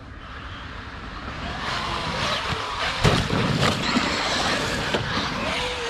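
Electric Traxxas RC monster truck driving hard over rough ground: motor whine and tyres scrabbling, building up from about a second in, with a loud thump about three seconds in.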